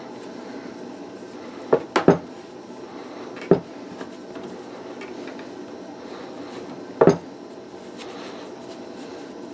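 A few sharp knocks and clatters on a wooden table while hands knead a ball of bread dough: a quick cluster about two seconds in, one more a second and a half later, and another about seven seconds in, over a steady low hum.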